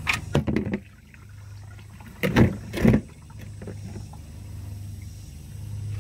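Handling noises from working with a hand tool under a car: a quick run of clicks and knocks, then two louder scraping rustles about two seconds in, over a steady low hum.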